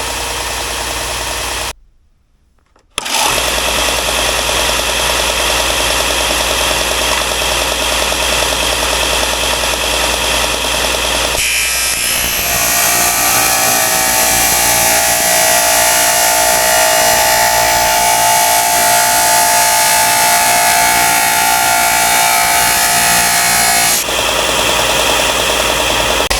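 Wen 6502T belt and disc sander running steadily, cut off briefly about two seconds in. From about eleven seconds to twenty-four seconds a louder, hissing grinding sound with a steady whine joins it, as a workpiece is sanded on the abrasive.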